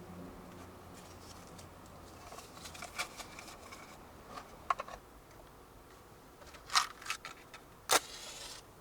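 Small clicks, taps and light rattles of gear being handled, with a sharp click about eight seconds in followed by a short hiss.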